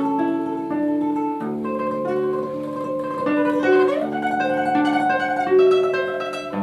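Solo classical guitar playing: plucked notes ringing over one another, melody over lower bass notes, with a short slide up in pitch about two-thirds of the way through.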